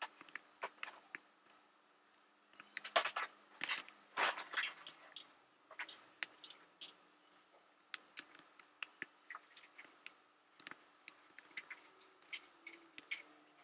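Computer keyboard typing: irregular keystroke clicks, with a quicker, louder run about three to five seconds in.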